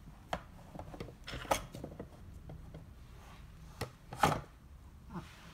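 Sheets of paper on a clipboard being handled: scattered taps and light rustles, the loudest a sharp knock a little after four seconds in.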